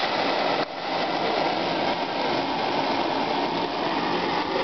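Butane jet-flame lighter burning with a loud, steady hiss, with one short dip a little over half a second in.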